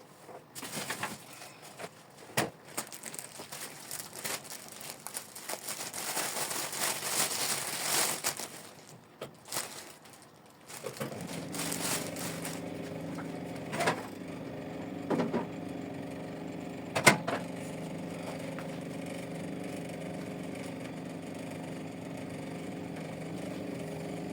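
Crackling and rustling with scattered clicks, then a steady mechanical hum starts about eleven seconds in and holds, with a few sharp knocks over it.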